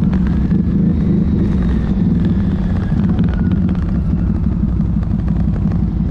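ATV engine running steadily under way, a continuous low drone.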